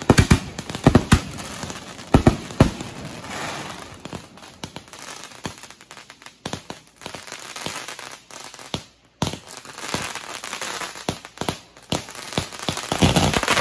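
Fireworks launching from the ground and bursting overhead. There are several sharp bangs in the first three seconds, then a long run of rapid small pops and crackles, which swells louder near the end.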